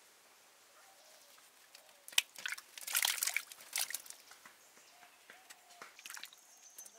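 Limes dropped from a woven basket into a metal basin of water, splashing loudly about two to four seconds in, followed by hands swishing and rubbing the limes in the water.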